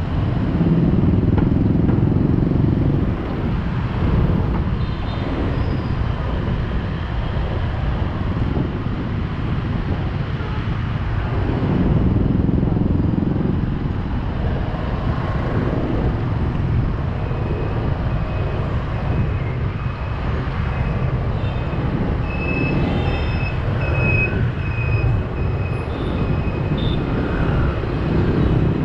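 Busy motorbike and scooter traffic heard from among the riders: a steady low rumble of small engines and tyres on the road, swelling as bikes pass close. A few short high beeps come about two thirds of the way through.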